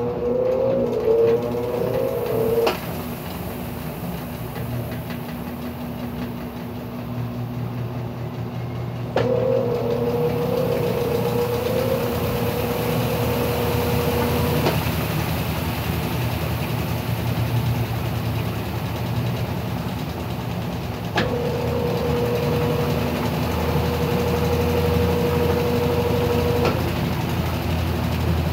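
Brastemp BWT12 12 kg top-loading washing machine on its spin cycle, the laundry basket spinning with a steady hum. A higher whine switches on and off every five or six seconds, with a click at each change, and rises in pitch as it comes on.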